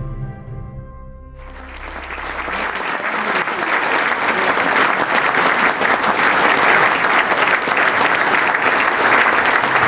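Music ends about a second and a half in, and a banquet audience takes up applause, building up and then holding steady.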